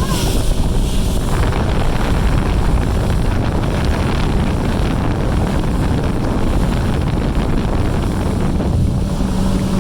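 Motorboat running fast across open water, with heavy wind noise buffeting the microphone. A steady engine hum comes through near the end.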